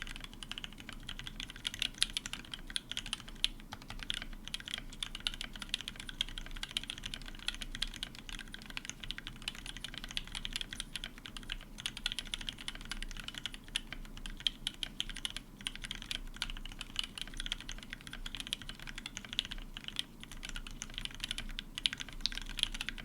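Continuous fast typing on a custom mechanical keyboard with a brass plate, lubed Gateron Ink linear switches and thick PBT keycaps, a dense stream of keystrokes with the occasional louder key.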